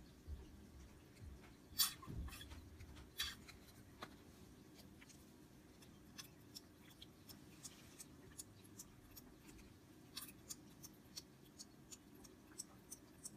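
Faint, irregular small clicks and taps of a plastic toy bottle being held and tipped against a baby doll's plastic mouth, over a low steady hum.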